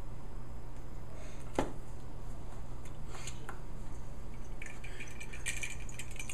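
Small objects being handled on a tabletop over a steady low hum: a few light clicks and taps, then crinkly rustling from about four and a half seconds in.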